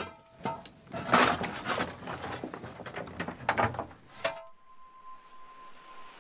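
Irregular metal clanks and scrapes of tools worked at a steam locomotive's open firebox on the footplate, some ringing briefly. About four seconds in they stop abruptly, leaving a faint steady hiss with a thin high tone.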